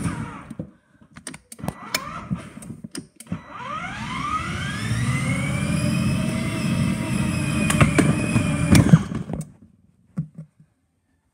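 Toy police car's electronic engine sound effect from its speaker: a few short clicks and snatches of sound, then an engine start-up that rises in pitch and runs steadily before stopping abruptly.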